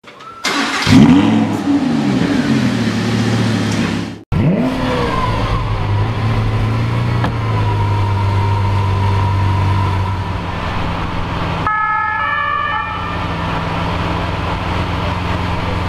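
Lamborghini Aventador SV Roadster's V12 starting with a sharp rev flare that rises and falls in pitch. After a brief break about four seconds in there is a second flare, and the engine then settles into a steady idle. A short run of electronic beeps sounds about twelve seconds in.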